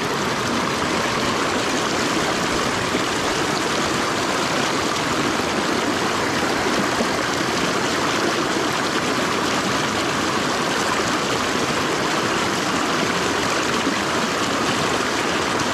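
A small mountain freestone stream rushing steadily over rocks in a little cascade close by, a continuous wash of water.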